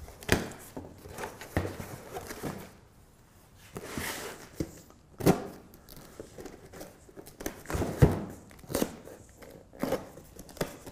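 Cardboard shipping box being opened by hand: packing tape tearing and cardboard rustling in irregular bursts, with a few sharp knocks against the box.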